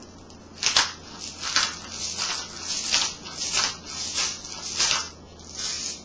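Pepper mill being twisted over a pot: a run of short, crunchy grinding bursts, about two a second.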